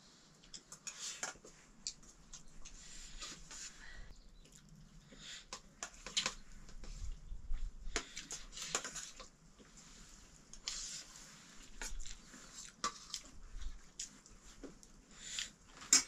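Metal spoons clinking and scraping on steel plates during a meal of rice and curry, in short irregular clicks and scrapes.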